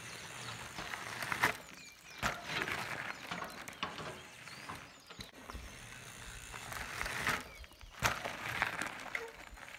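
Mountain bike tyres rolling and crunching over a gravel driveway, with scattered sharp clicks and knocks from the bike as it is ridden through tricks.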